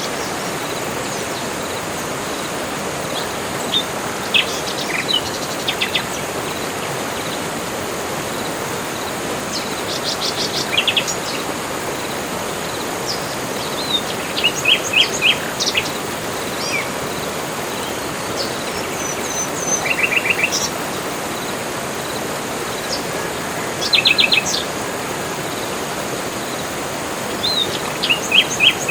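Several birds calling in a tropical forest: short high chirps and quick trills of rapidly repeated notes every few seconds, over a steady, even background hiss.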